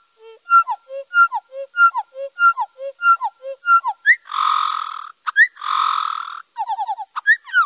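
Song sparrow song played back slowed down, heard through a video call's audio. A phrase of short notes repeats about every two-thirds of a second, then two long buzzy notes, then a quick trill and further notes near the end. Slowing the song lays bare its trills and grace notes.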